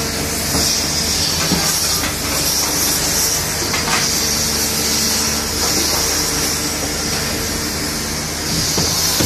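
Diesel engines and hydraulics of grapple-equipped Caterpillar material handlers working a scrap metal pile: a steady running hum with a hiss on top and a few faint metal clanks.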